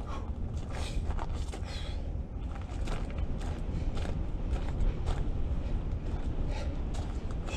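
Wind rumbling on the microphone, with scattered light crunches of shoes on gravel.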